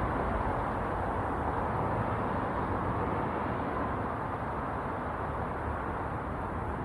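Outdoor HVAC units running, a steady, even noise with no breaks.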